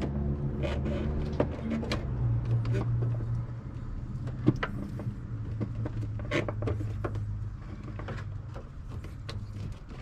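A steady low hum runs throughout, with scattered small clicks and knocks as rubber hoses are handled and the smoke tester's hose is pushed back onto a vacuum line in the engine bay. One sharper click comes about halfway through.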